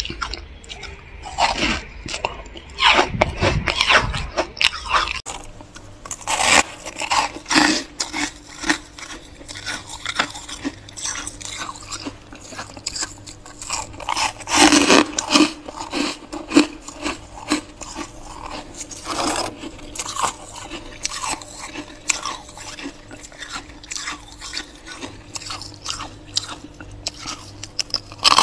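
Thick freezer frost crunching as it is scraped and broken off in chunks: a dense run of irregular crunches.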